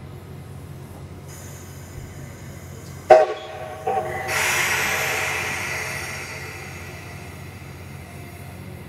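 D51 steam locomotive's whistle sounding a sudden short blast about three seconds in and a second brief note, followed by a loud rushing hiss that fades over two or three seconds, over a steady low rumble.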